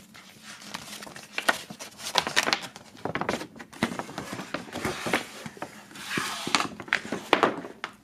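A folded glossy paper poster being unfolded and spread flat by hand: irregular rustling and crinkling of the paper, with several sharper crackles.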